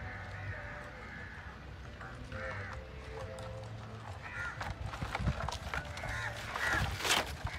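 Crows cawing repeatedly, with a few knocks in the second half.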